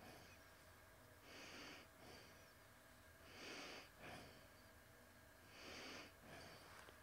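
Faint breathing close to the microphone: three breaths about two seconds apart over a low room hum.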